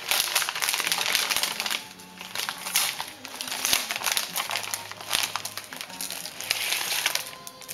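Gift-wrapping paper crinkling and rustling as a present is unwrapped by hand, in irregular crackly handfuls.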